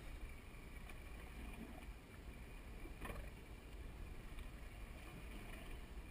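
Boat ambience on open sea: wind rumbling on the microphone over a steady sea hiss, with a single sharp click about three seconds in.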